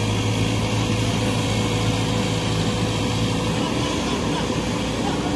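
Diesel engines of a JCB tracked excavator and a JCB backhoe loader running steadily, with a low drone that eases about two-thirds of the way through.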